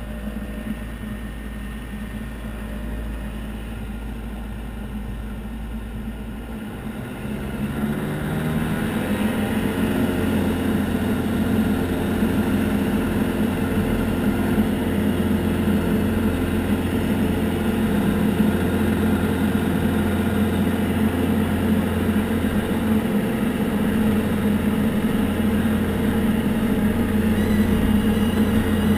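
Diamond DA40 single-engine propeller plane heard from inside the cockpit. The engine runs low and steady at first; about seven seconds in the throttle is opened, and engine and propeller rise in pitch and loudness to full takeoff power, then run steadily through the takeoff roll.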